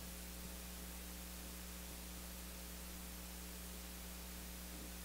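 Faint steady electrical hum and hiss: room tone of a mic and PA system with no one speaking.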